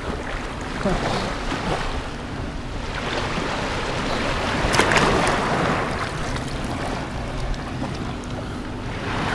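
Small waves washing on the shore with wind buffeting the microphone, the wash swelling louder about halfway through.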